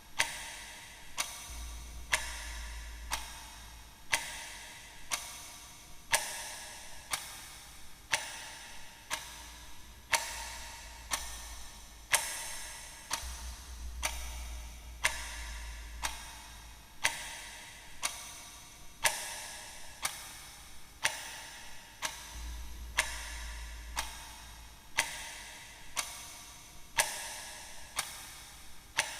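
Slow clock tick-tock of a custom 'stopped time' sound effect: about one tick a second, each with a short ringing tail. A low hum swells and fades underneath now and then.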